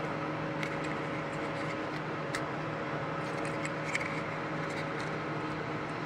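A few faint plastic clicks as fingers pry at the housing of an old headlight switch, working it apart, over a steady background hum.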